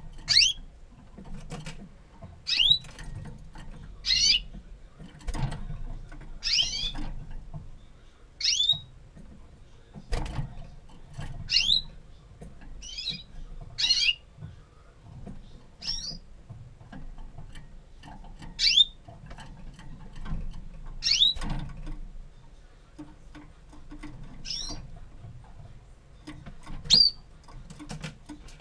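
Male Gloster Corona canary giving short call notes rather than full song: single quick chirps that sweep down in pitch, repeated every one to two seconds. A few soft low thumps fall between the calls.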